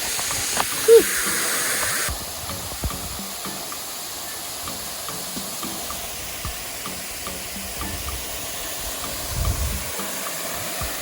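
Waterfall pouring into its pool: a steady rushing hiss of falling water and spray. It is louder for the first two seconds, then settles to a lower, even rush.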